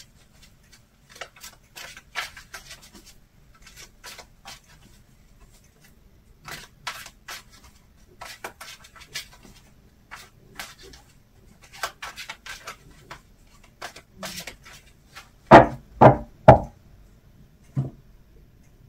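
Tarot cards being shuffled by hand, a run of soft card flicks and swishes. About three quarters of the way in come three loud knocks on the table in quick succession, then a softer one as cards are set down.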